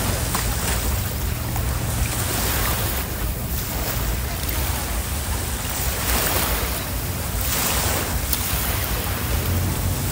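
Sea waves with wind buffeting the microphone, a steady low rumble underneath and the noise swelling and easing every couple of seconds.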